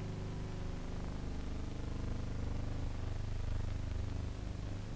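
Steady low hum that does not change, with no speech.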